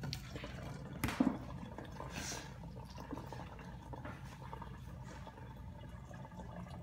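Root beer pouring from a plastic bottle through a funnel into a plastic gallon jug, splashing and trickling. There is a sharp knock about a second in.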